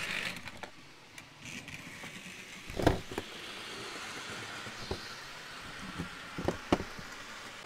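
Bachmann HO scale Emily model locomotive running on its track: a steady faint whir of the small motor and wheels, with a few sharp clicks, the loudest about three seconds in and two more near the end.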